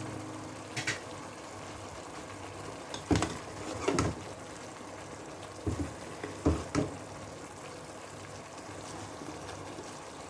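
Kitchen cooking sounds: a steady hiss of liquid boiling or water running, with several short knocks and clinks of cookware and utensils.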